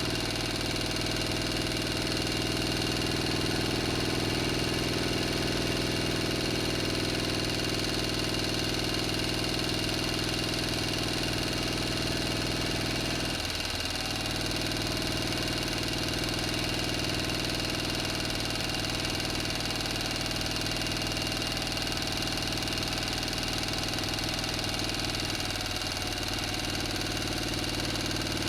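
Engine idling steadily at an even speed, with a brief wobble in its note about halfway through.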